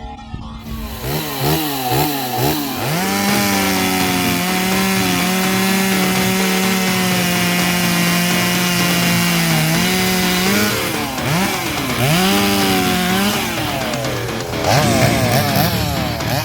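A STIHL MS 250 chainsaw's two-stroke engine is revved in a few quick blips, then held at high speed for about seven seconds. It drops back and is revved up again several times near the end.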